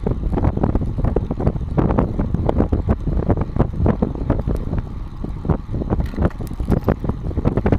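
Wind buffeting the microphone of a GoPro mounted under a moving bicycle's saddle, over a steady low rumble from the tyres on asphalt. Many small rattles and knocks come through as road vibration shakes the camera mount.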